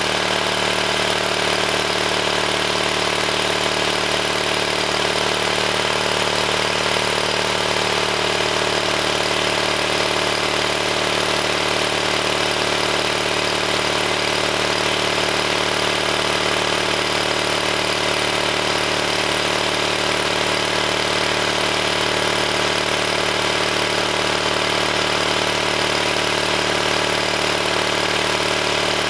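Onan CCK generator set's air-cooled two-cylinder engine running at a steady speed, without change.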